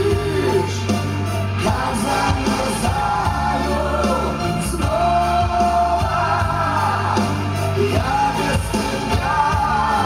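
Pop ballad playing, with a sung melody in long, sliding notes over a steady low bass.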